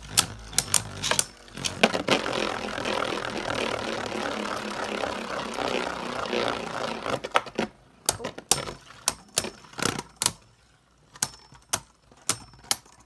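Two Beyblade Burst spinning tops battling in a plastic stadium. At first there are rapid sharp clicks as they collide, then a few seconds of dense continuous rattling as they rub together. Near the end come scattered single clicks and knocks.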